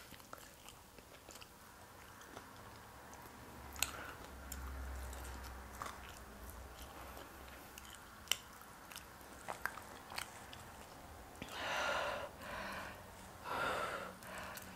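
Close-miked chewing of a sauced hot chicken wing, with a few sharp wet mouth clicks, then two loud breaths near the end as the eater reacts to the heat of the sauce.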